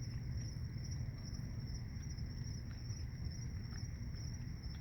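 Night insects chirping in a steady, fast-pulsing high trill, over a low steady rumble.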